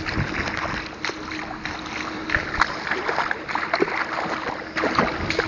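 Bare feet splashing and slapping through puddles and wet mud at a running pace.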